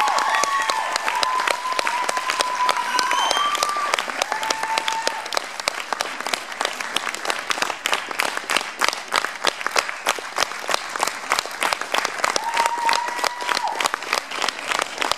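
Theatre audience applauding, with high voices cheering over the clapping in the first few seconds and briefly again near the end. The applause thins out and grows fainter as it goes on.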